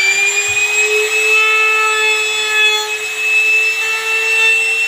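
Handheld electric trimmer (compact router) running at high speed, its whine settling to a steady pitch in the first second, as its bearing-guided bit trims the edge of an acrylic sheet laminated onto plywood flush.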